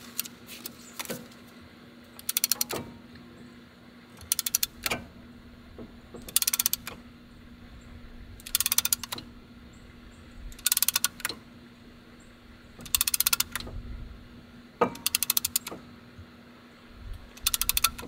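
A hand ratchet clicking in short rapid bursts about every two seconds, with single clicks between, as it slowly cranks a caliper piston compressor spreading inside a brake caliper to push the pistons back in.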